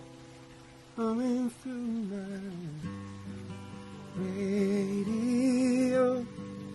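A man sings over a Martin acoustic guitar. The guitar chords ring quietly for about the first second, then come two sung phrases: the first falls in pitch, and the second is held until near the end.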